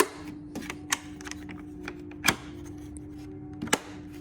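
Irregular clicks and knocks of hand tools and a tool case being handled, with two louder knocks in the second half, over a steady low hum.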